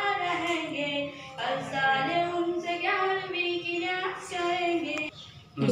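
A boy singing a naat unaccompanied, in long drawn-out melodic notes, with a short breath pause near the end.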